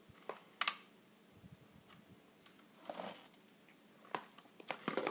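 A Lego Technic plastic model tractor handled by hand: a few separate plastic clicks and knocks as it is picked up and tipped over, a brief rustle about three seconds in, and rattling near the end.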